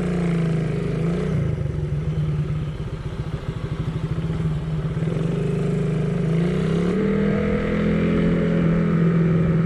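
Motorcycle engine running on the move. Its note falls away about a second in, stays low for a few seconds, then climbs back up about six seconds in and holds steady to the end.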